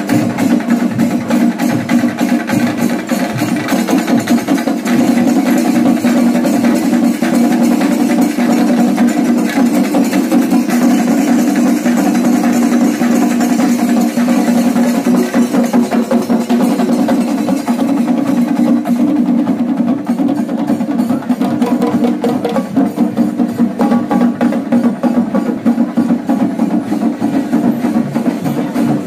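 Drum ensemble playing loud, fast, dense drumming over a steady low tone.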